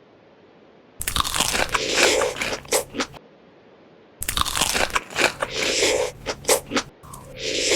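Close-miked crunchy biting and chewing of crisp food, in dense crackly bouts: one starts suddenly about a second in, and after a short pause another starts about four seconds in and runs on.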